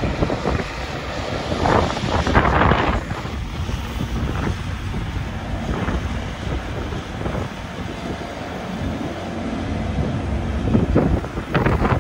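Two diesel locomotives, B-class B80 leading, running past at the head of a tank-container freight train, with heavy wind buffeting on the microphone that swells in gusts about two seconds in and again near the end.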